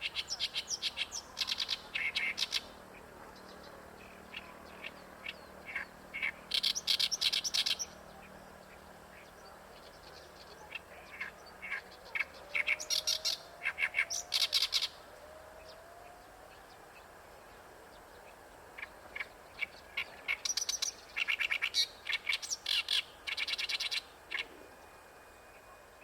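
Oriental reed warbler singing: four bouts of rapid, repeated chattering notes, each a few seconds long, separated by pauses.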